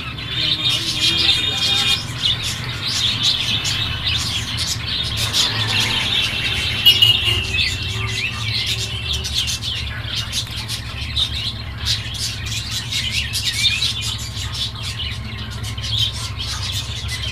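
Many small birds chirping and trilling at once in a dense, unbroken chorus, over a steady low rumble.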